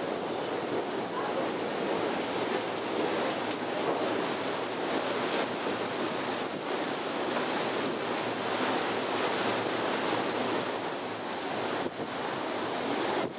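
Steady rush of a ferry's churning wake water, with wind blowing on the microphone.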